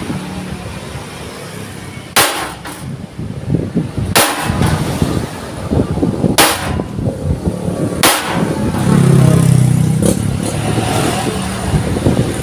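Sharp blows on steel plate, five strikes about two seconds apart, as the sheet is hammered into shape. A low engine-like rumble runs underneath and swells about nine seconds in.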